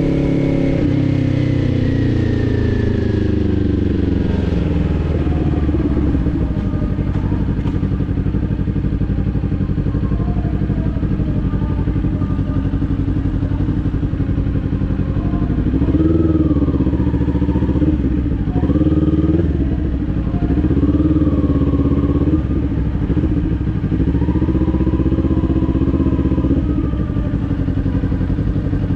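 Kawasaki Ninja 400's parallel-twin engine slowing, its pitch falling over the first few seconds. It then runs low and steady, with several brief rises and falls in revs in the second half.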